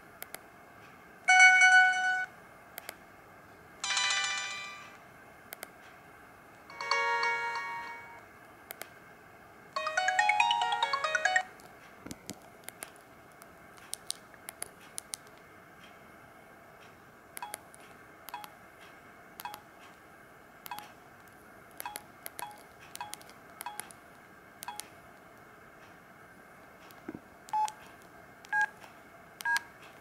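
Sony Ericsson J110i mobile phone playing four short electronic message-alert jingles one after another, the fourth a quick rising run of notes. Then a long series of short clicks and small beeps as the phone's keys are pressed.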